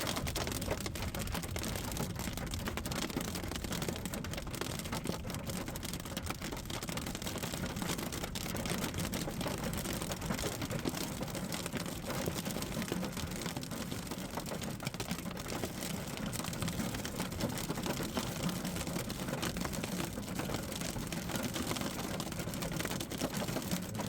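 Heavy rain falling, a steady dense patter and hiss.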